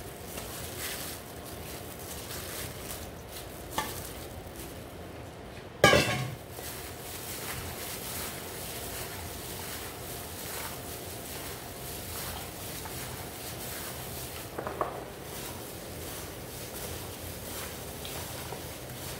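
Raw chicken chunks being stirred into a spice-paste marinade in a bowl, with a sharp clank about six seconds in and a couple of lighter knocks.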